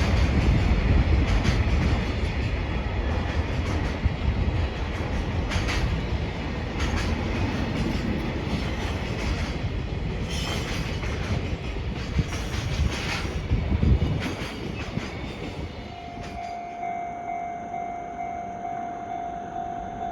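A long freight train passing on the rails, its wheels clattering and knocking over rail joints, the rumble dying away about sixteen seconds in. A steady high tone starts just after and keeps going.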